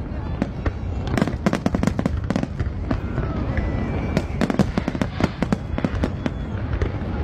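Large fireworks display: shells bursting in a rapid, irregular string of sharp bangs and crackles, several a second, over a continuous low rumble.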